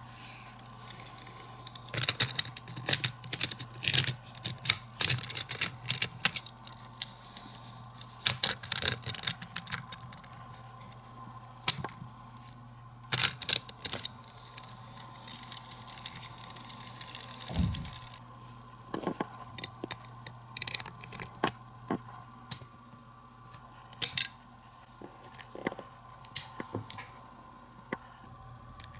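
Hands handling and fitting together pieces of a plastic toy playset: irregular clicks, taps and short rustles, over a faint steady hum.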